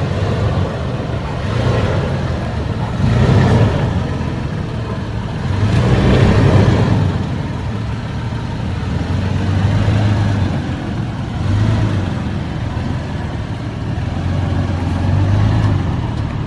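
A 2011 Toyota 4Runner's 4.0-litre V6 running at low revs while crawling an off-road trail. The engine note swells with throttle several times, and rougher bursts of noise from the tyres and chassis come about three and six seconds in.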